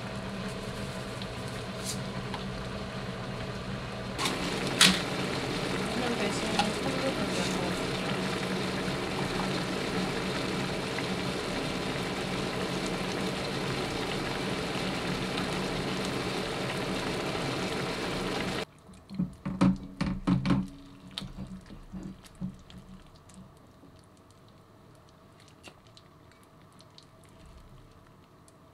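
A pan of braised chicken and potatoes in sauce bubbling and sizzling on a gas stove as it is stirred. The sizzle cuts off suddenly, followed by a few knocks of a utensil against the pan.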